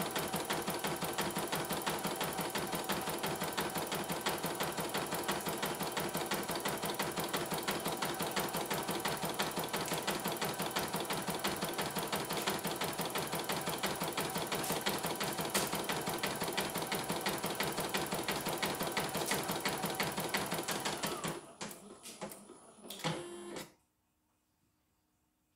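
CNY E900 portable computerized embroidery machine stitching a design with a rapid, even needle rhythm, running smoothly on a test after a mainboard replacement. About 21 seconds in the stitching stops, followed by a few short mechanical clicks and whirs before the machine falls still.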